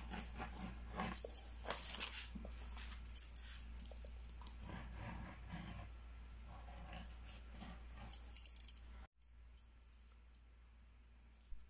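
Light clicks and rustles of small sewing tools and paper being picked up and handled, with a quick run of clicks near the end. The sound then cuts off suddenly to near silence.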